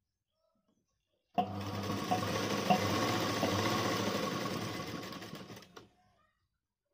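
Sewing machine stitching a zip into a garment: it starts suddenly about a second and a half in, runs steadily for a few seconds, then slows and stops with a click near the end.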